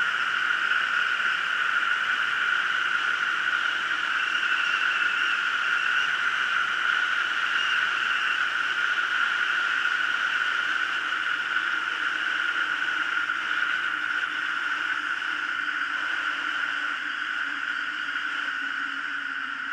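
Lycoming O-290 four-cylinder aircraft engine and metal propeller droning steadily in flight, heard from a camera mounted outside on the wing. Near the end the engine note slides lower and eases off as power comes back over the runway for landing.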